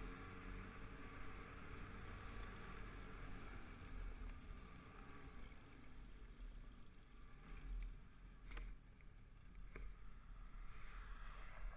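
Snowmobile engine running with track and wind hiss as the sled rides down a snowy trail, easing off about halfway through as it slows to a stop and idles with a low rumble. A couple of sharp clicks near the end.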